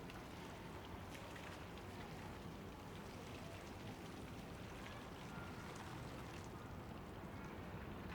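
Faint outdoor ambience beside a canal: a steady low rumble with many light, scattered ticks and drips throughout.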